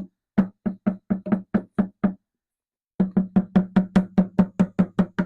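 Rapid, evenly spaced knocking, about four to five strikes a second, each with the same low ring. It breaks off abruptly for under a second midway, then resumes at the same pace.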